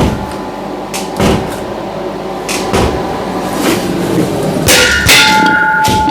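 Metal being knocked and clanked by hand: a handful of irregular hits, the loudest cluster about five seconds in, each followed by a lingering metallic ring.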